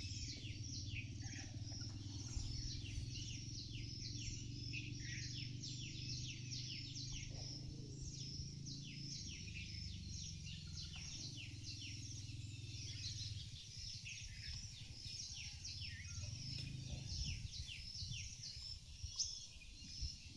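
A flock of small birds chirping continuously, many short downward-sliding calls overlapping several times a second, over a steady low rumble. A brief louder knock comes near the end.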